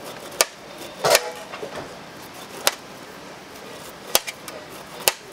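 Kitchen knife striking a cutting board as fresh fruit is cut: about five sharp knocks at uneven intervals, the loudest a little over a second in.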